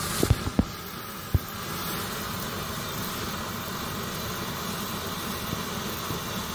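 Green hand-held pyrotechnic signal flare (category P1) burning with a steady hiss. A few sharp pops come in the first second and a half.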